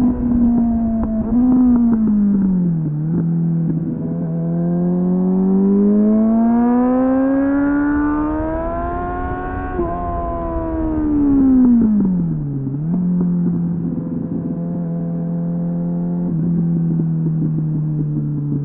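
2001 Suzuki GSF 600 Bandit's inline-four engine through an aftermarket slip-on exhaust with a home-made dB killer, heard on board. The revs drop, hold, climb steadily for several seconds under acceleration, fall away again about twelve seconds in, then settle to a steady cruise.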